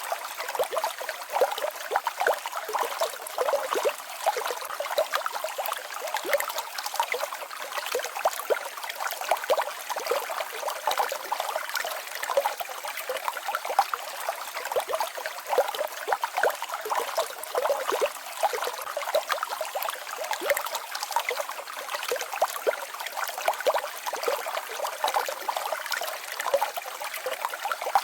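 Small mountain stream babbling over a little waterfall: steady, light splashing and trickling, with no deep rumble.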